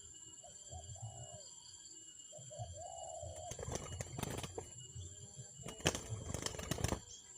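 A spotted dove cooing twice, two short wavering calls. These are followed by several loud noisy bursts in the second half.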